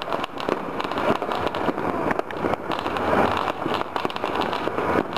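Many fireworks and firecrackers going off all over a city at once: a continuous crackle of overlapping pops and bangs with no pause.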